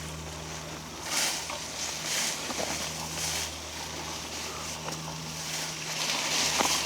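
Footsteps crunching through dry fallen leaves and brush, about one step a second at first, with a longer, louder stretch of crunching near the end.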